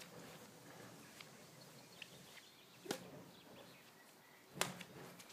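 Two sharp taps of badminton rackets hitting a shuttlecock, about a second and a half apart, over faint outdoor background.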